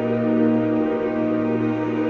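Background music: a slow ambient piece of sustained, held chords over a steady low note.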